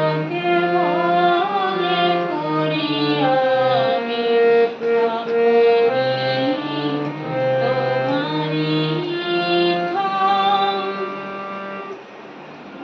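Harmonium playing held notes and chords under a woman's sung devotional melody, the closing bars of a Bengali Shyama Sangeet. The music dies away near the end.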